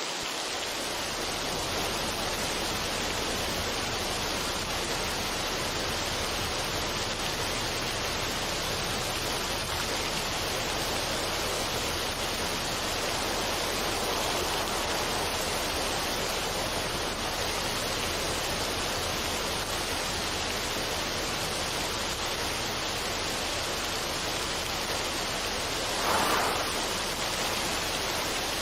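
Steady, even rushing noise with no music, like a continuous waterfall or white-noise track, with one brief louder whoosh near the end.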